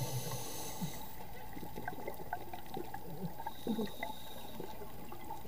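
Underwater sound through a diving camera's housing: a steady watery hiss with scattered small crackles and a short bubbling gurgle about two-thirds of the way in.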